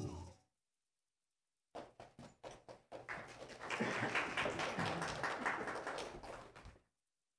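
The last chord of choir and piano fades out. After a short silence come a few knocks, then several seconds of rustling and shuffling as a robed choir sits down on wooden benches, with robes and music folders moving. The shuffling cuts off abruptly.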